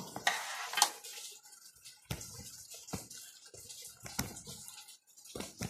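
Rain dripping: a light hiss with sharp, separate drops about a second apart.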